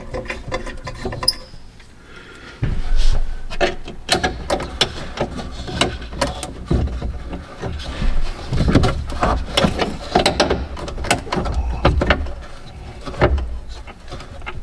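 Handling noise of hands working at an excavator cab's plastic floor panel while starting its bolts by hand: scattered clicks and knocks with rustling, and a low rumble from about two and a half seconds in.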